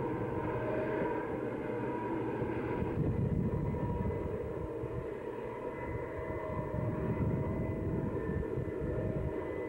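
Distant Southern Pacific diesel locomotives working upgrade with a long freight train: a steady low drone with rumbling swells about three and seven seconds in.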